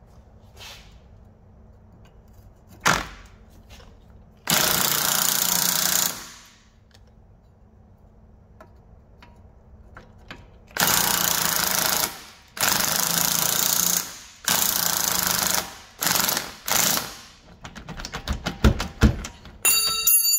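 Cordless impact wrench hammering on the rear shock absorber's lower mounting bolt in four bursts of about a second and a half each, then two short bursts. Near the end there is a quick run of clicks and a short metallic ring.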